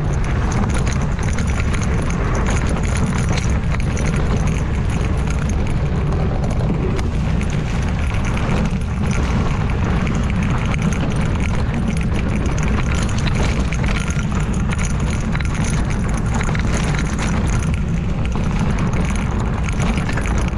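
Wind rushing over the camera microphone, a steady heavy rumble, mixed with the tyre and frame rattle of a mountain bike riding a rough dirt trail.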